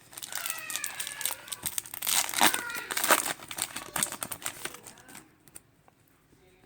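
Foil wrapper of a Pokémon trading card booster pack crinkling and tearing as it is ripped open, busiest about two to three seconds in, then falling quiet.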